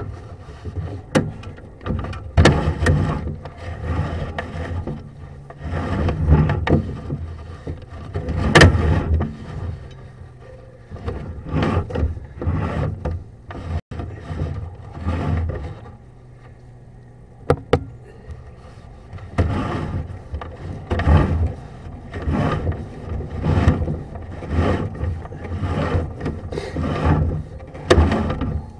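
Sewer inspection camera's push cable being pulled back through an ABS sewer line: uneven rounds of scraping and rubbing, with a few sharp knocks and a quieter pause in the middle.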